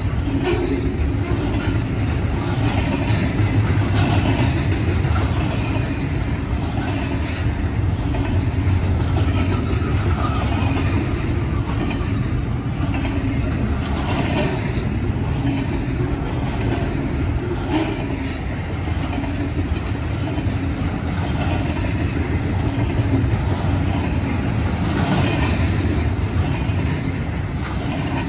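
Double-stack intermodal freight train's container well cars passing close by at speed: a steady rumble of steel wheels on rail, with recurring sharper clatters.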